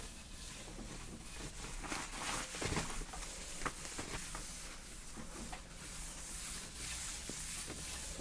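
Light rustling and a scattered series of small clicks and knocks, as of small objects being handled on a desk; the loudest knocks come around the middle.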